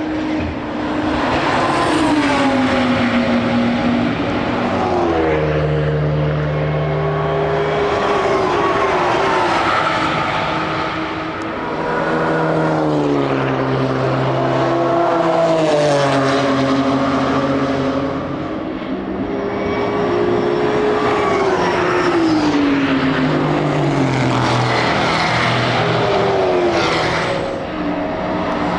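Racing cars at speed passing one after another, their engine notes climbing through the gears and falling away, often two or more engines heard at once.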